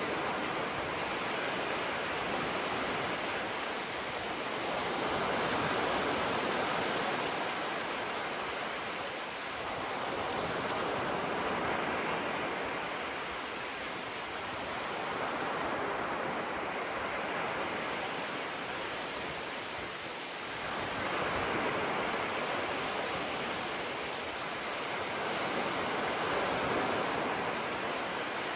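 Small sea waves breaking gently and washing up the shore, the surf swelling and easing about every five to six seconds.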